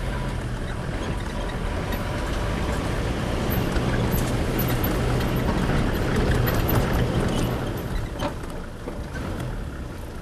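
Safari vehicle's engine running as it moves along a rough track, getting louder in the middle, with light rattles and a single knock about eight seconds in.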